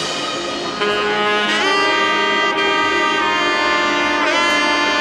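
Background music: long held, horn-like melody notes that change with a short scoop in pitch about one and a half seconds in and again near four seconds.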